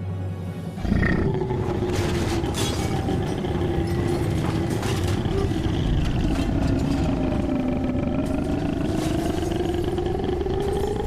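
A man's long, drawn-out belch that starts abruptly about a second in and goes on unbroken. Its pitch sinks and then rises toward the end.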